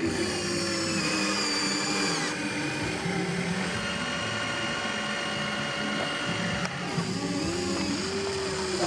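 Small electric motors and gears of a radio-controlled toy excavator whining steadily. The pitch shifts about two seconds in and again near seven seconds, as the motors change what they are doing.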